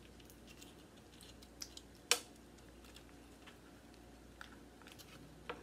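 Spoon scraping soft cream cheese out of its foil wrapper: faint, scattered clicks and crinkles, with one sharper click about two seconds in.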